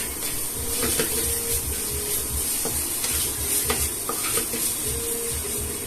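A spoon stirring and scraping in a pan of frying spiced potato and yellow-pea mixture, irregular scrapes over a steady sizzle.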